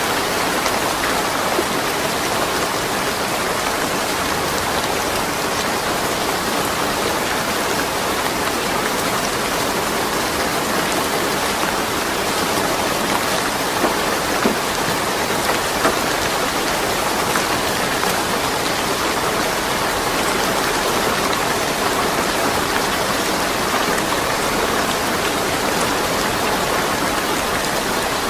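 Steady rain falling, an even patter of drops on surfaces with a few louder single drops near the middle, and no thunder.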